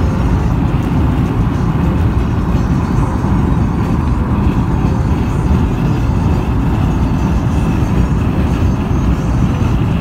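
Steady road and tyre noise of a car travelling at speed on a dual carriageway, heard from inside the cabin.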